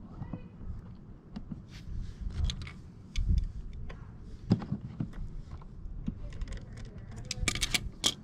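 Small metal clicks and clinks of a hand tool working on the choke linkage of a Ryobi inverter generator, as a small fastener on the linkage is tightened. The clicks are irregular, with a quick cluster near the end.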